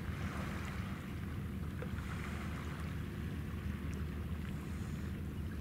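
Steady low rumble of a ship's machinery with wind and water noise, and no whistle blast.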